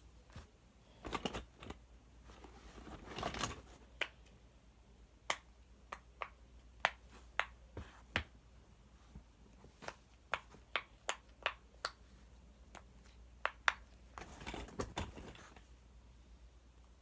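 Fidget toys being handled and sorted through: a string of sharp, irregular clicks with a few short bursts of rustling and clatter.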